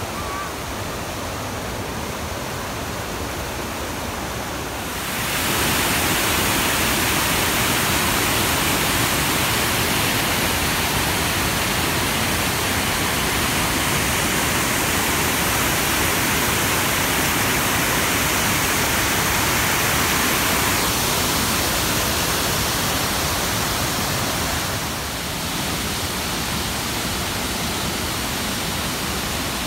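Rushing water of the Una River's rapids and waterfalls, a steady noise that grows louder about five seconds in and drops back a few seconds before the end.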